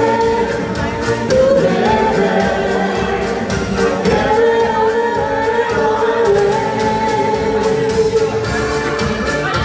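Live band music: two women singing long held notes into microphones, with a Korg Kronos keyboard accompaniment.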